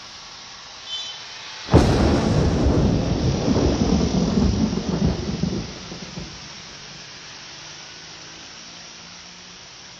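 Thunder during a rainstorm: a sudden sharp crack about two seconds in, followed by a low rumble that rolls on for about four seconds and dies away, over steady rain.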